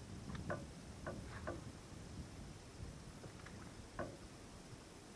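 Faint, scattered small clicks and light knocks, about seven of them spread unevenly, over a low rumble that fades after the first two seconds.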